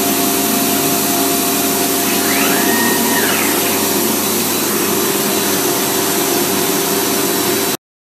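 CNC router engraving wood, its spindle cutting with dust extraction running steadily. About two and a half seconds in, a brief whine rises, holds and falls. The sound cuts off suddenly near the end.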